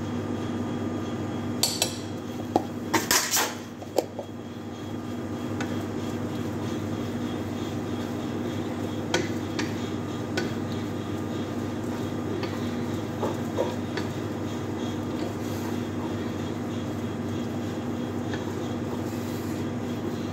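A metal spoon clinking against a cooking pot and a jar: a cluster of sharp clinks in the first few seconds, then scattered lighter taps, over a steady kitchen hum.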